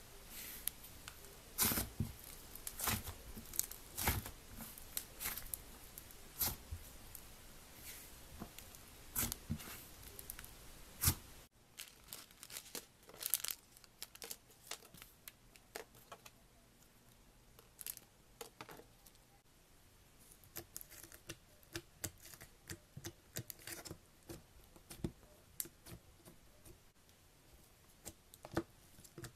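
Thick butter-textured slime pressed and pulled by hand, giving sharp sticky crackles and pops. After a cut, a foil packet crinkles in the hands. Later, foam-bead slime (floam) is poked in its plastic tub with quick small clicks and crunches.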